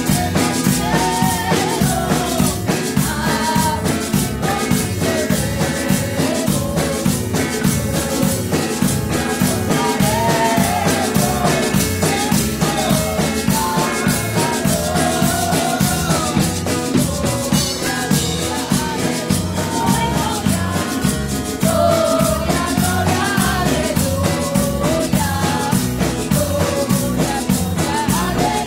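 Live church praise music: a woman singing a melody into a microphone over electric bass guitar and a steady drum beat.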